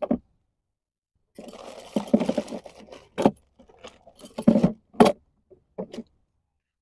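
A second of dead silence, then a stretch of rustling and scraping, followed by four or five sharp clinks and knocks, like gear or objects being handled.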